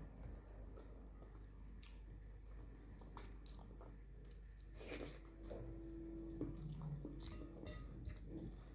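Faint chewing and mouth sounds of a person eating rice and vegetable stew by hand, with small soft clicks of fingers on the plate. A brief steady hum sounds a little past halfway.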